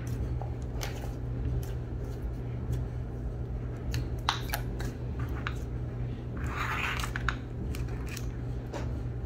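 Glossy orange slime being kneaded and folded by hand, giving scattered sharp clicks and pops as it stretches and presses, with a longer wet squish about two-thirds of the way through.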